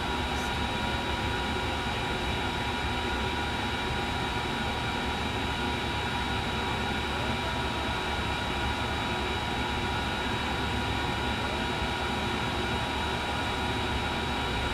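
Steady whir of a small electric fan with several high, steady whining tones over it, unchanging throughout.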